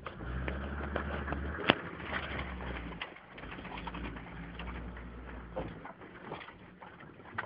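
Mercedes-Benz G-Class "Wolf" engine running in a low, steady drone while the vehicle crawls over rough ground, heard from inside the cab, with knocks and rattles from the bodywork. One sharp knock about a second and a half in is the loudest, and the engine drone fades out near the end.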